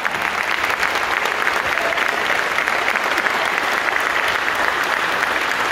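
Congregation applauding with steady, dense clapping.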